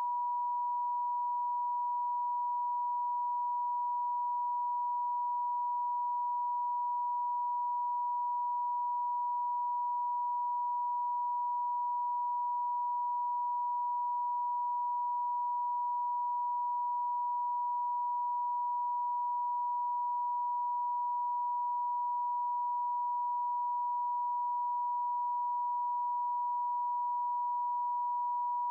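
A pure sine tone at about 1 kHz, generated as a Rife frequency, holding steady at one pitch and level with nothing else over it.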